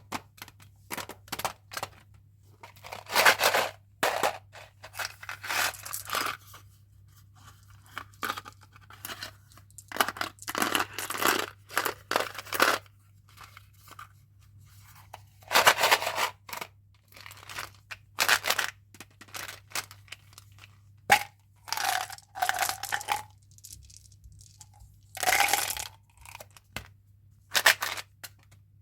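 Candy and chewing-gum packaging being torn open by hand, in irregular bursts of tearing and crinkling wrapper, some with a brief squeak.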